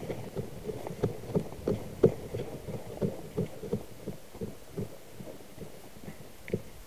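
Footsteps on grass and soft ground, a steady run of low thumps about three a second, picked up by a camera carried by the walker.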